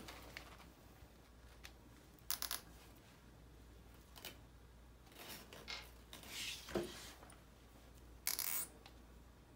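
Gloved hands handling a plastic syringe and its adapter and tubing: scattered short, faint rustles and clicks, the longest near the end.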